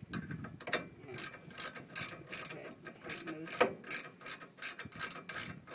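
Ratchet wrench with a 5/8-inch socket clicking in quick, even runs of several clicks a second as the brake caliper bolts are snugged down after a pad change.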